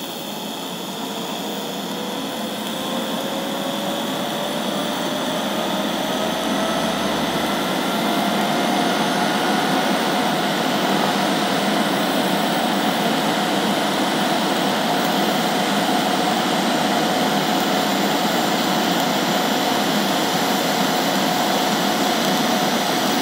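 DC TIG welding arc from an HTP Independence 210 AC/DC inverter welder, set to full amperage with no pulse, burning steadily on 3/8-inch plate: a continuous hiss with a faint tone that rises in pitch over the first ten seconds or so, then holds steady.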